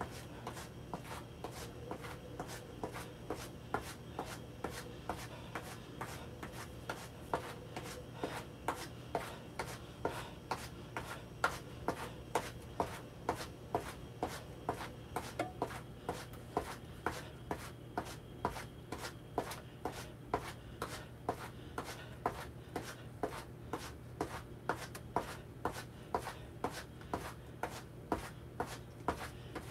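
Feet landing on the floor while marching on the spot: steady, light footfalls at about two a second.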